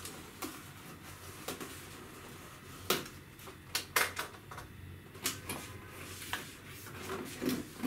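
Handling noise from a cardboard laptop box on a glass-topped desk: a few sharp clicks and taps with soft scrapes as it is worked at and moved.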